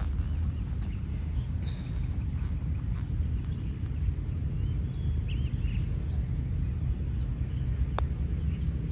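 Short high bird chirps repeating every second or so over a steady low rumble of wind on the microphone, with a single light click near the end.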